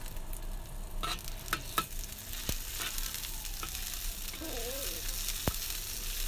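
Sliced garlic, shallots and bird's-eye chillies sizzling in hot oil in a wok as a spatula stir-fries them, the sizzle building from about a second in. A few sharp clicks come from the spatula knocking and scraping the wok.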